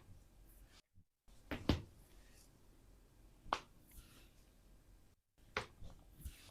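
Spine cracking: sharp cracking pops from the back joints being manipulated, four in all and spaced one to two seconds apart, with a quick double pop about a second and a half in.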